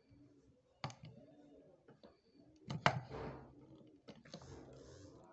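A few sharp clicks and scrapes of a steel setting tool pressing the bezel of a silver ring around its stone, the loudest near three seconds in.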